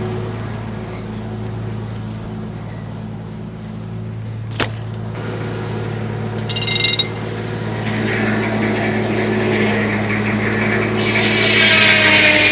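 Tractor engine running steadily to power a homemade circular sawmill, with a sharp click a few seconds in and a short high squeal midway. The circular blade then starts cutting into a log, building up and getting loud for the last second or so.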